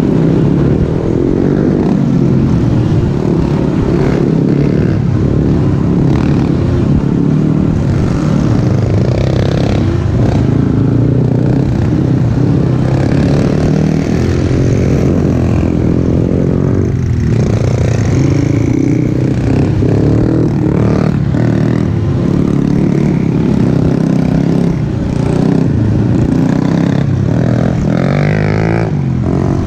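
Quad bike (ATV) engines running under throttle on a rough dirt trail, their pitch rising and falling as the riders speed up and slow down, with clattering knocks from the machines jolting over bumps.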